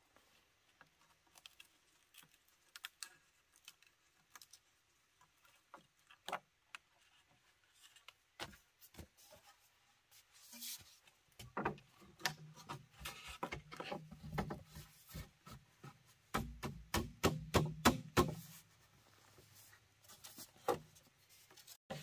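Knocks and taps of wood being handled and worked, scattered at first and then a quick run of knocks, several a second, in the second half.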